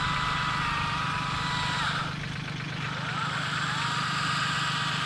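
Engine idling steadily, with a high steady whine over it that cuts off about two seconds in and rises back in about a second later.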